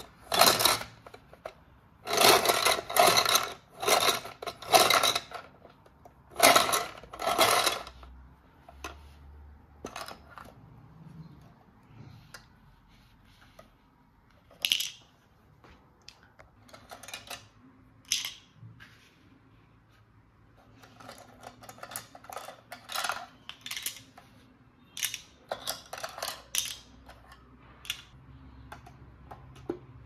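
Small hard plastic toy parts being handled: a string of short clattering and rustling bursts, loud and close together in the first eight seconds, then sparser and softer.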